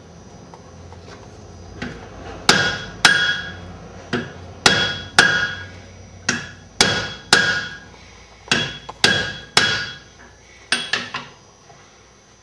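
Blacksmith's hand hammer striking a hot iron bar on the hardy set in the anvil, cutting it partway through so the piece can be broken off. About a dozen ringing blows come mostly in quick pairs, ending with two lighter taps near the end.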